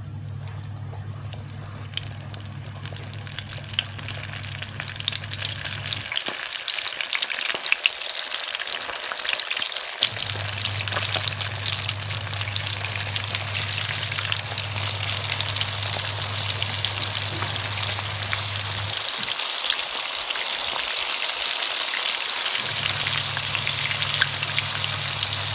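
Flour-coated chicken wings deep-frying in hot oil: a dense sizzling crackle that grows louder over the first several seconds and then holds steady. Under it runs a low hum that cuts out twice.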